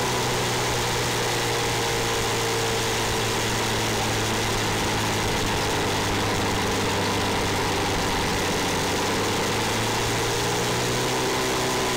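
Open-wheel formula race car's engine running steadily at low revs, heard from the cockpit as the car creeps along.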